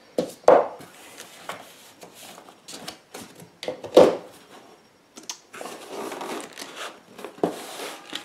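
Hands handling a cardboard box and its packing. A few sharp knocks come as items are set down and the box is handled, the loudest about halfway through, with rustling of cardboard and plastic wrap in between.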